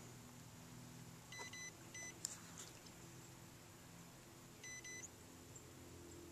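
Short electronic beeps, two of them about a second and a half in and another near the end, over a faint steady low hum.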